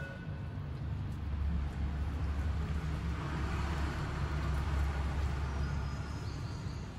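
Low rumble of a passing vehicle, swelling about a second in, loudest in the middle and fading near the end.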